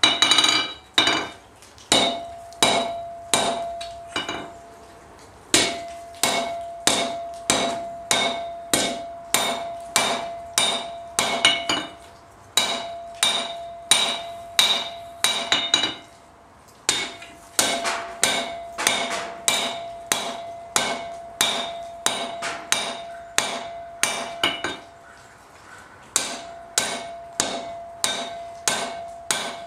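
Hand hammer striking red-hot flat bar stock on an anvil while forging a strap hinge, about two blows a second in runs broken by a few short pauses. A steady ring from the anvil carries under each run of blows.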